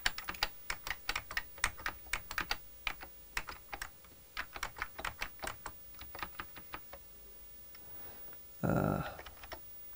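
Keys on the Interak Z80 computer's keyboard pressed in quick, irregular succession, several clicks a second, thinning out after about six seconds as pixels of a character graphic are set. A short, louder sound comes about nine seconds in.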